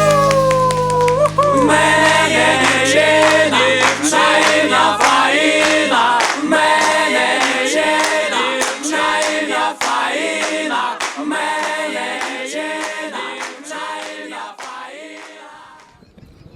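Song outro: several voices singing a short repeated refrain in harmony over a sharp percussive beat, after a held chord that ends with a falling slide about a second in. The music fades out near the end.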